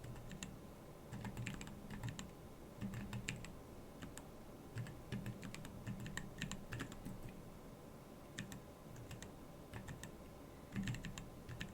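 Typing on a Keyball39 split mechanical keyboard: irregular runs of key clicks with short pauses between them, thinning out for a couple of seconds and picking up again near the end.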